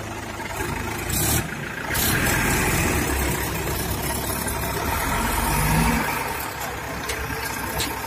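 Heavy diesel engine running, revving up about two seconds in and dropping back to a low idle near six seconds.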